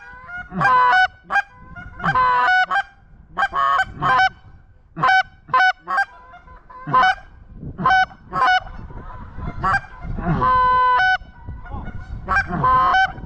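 Goose honking: a long series of short, loud honks, several a second at times, with a longer held honk about ten seconds in.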